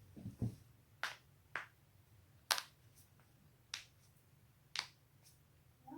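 A series of sharp, short joint-cracking pops, about seven at uneven intervals with a few fainter ones between, the loudest about two and a half seconds in.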